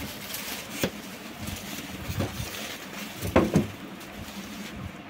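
Clear plastic wrapping rustling and crinkling as a computer cabinet is pulled out of its bag and turned over, with a few handling knocks on the case; the loudest knocks come about three and a half seconds in.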